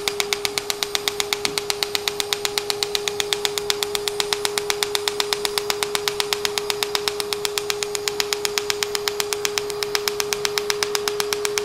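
Er:YAG laser handpiece of an MCL31 Dermablate firing fractional pulses onto facial skin: an even, rapid train of sharp pops, about six a second, over a steady hum. Each pop comes from the water in the skin evaporating under the pulse as the tissue is ablated.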